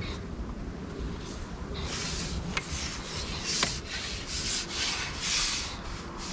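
Carbon fishing pole being drawn back hand over hand, rubbing and sliding in a series of hissy swishes with a couple of sharp clicks.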